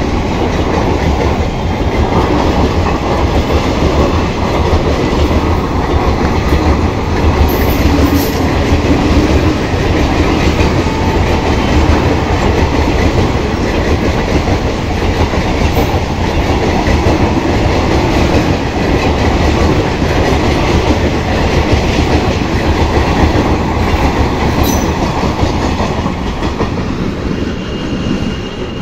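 Indian Railways passenger coaches of an express passing close at speed, their wheels running loudly and steadily over the rails. The sound falls away near the end as the last coach goes by.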